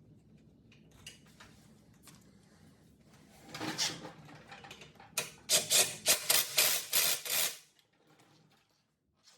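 Hand tools working on metal: a short rasping scrape, then a run of about seven loud scraping, clanking strokes, roughly three a second, while a rear shock absorber is being fitted.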